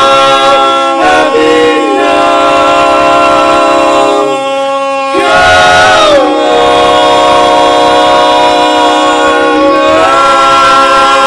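Male barbershop quartet singing a cappella, holding long ringing chords. The sound thins briefly about four seconds in, then one long sustained chord follows that shifts upward near the end.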